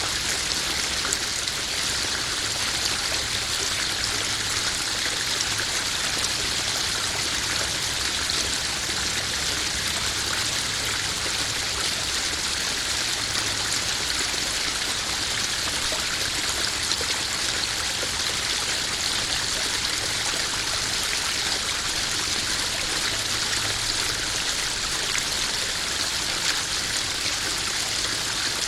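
Small garden pond waterfall splashing and trickling steadily into a koi pond, an even rushing hiss of falling water.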